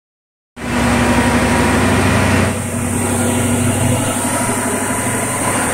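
Supercharged 6.2-litre HEMI V8 of a 2015 Dodge Challenger SRT Hellcat, fitted with an aftermarket intake, idling steadily on a chassis dyno before a pull. It starts about half a second in, and the upper hiss eases slightly a little past two seconds.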